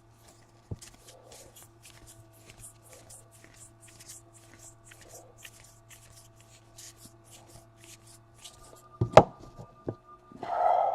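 Baseball cards being flipped through by hand, card stock swishing softly several times a second, with two sharp knocks about nine seconds in and a louder brief burst near the end. A faint steady hum runs underneath.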